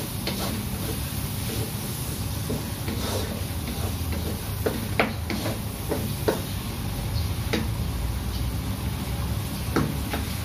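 Chopped onions sizzling in hot oil in an aluminium wok, stirred with a wooden spatula that scrapes and knocks against the pan now and then.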